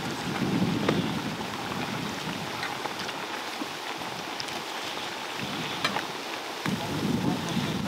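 Hot oil sizzling steadily in a large pan, with scattered small pops and crackles, typical of bread pakoras deep-frying.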